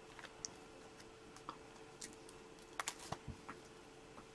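A few faint, scattered clicks and taps of small objects being handled at a desk, over a faint steady hum.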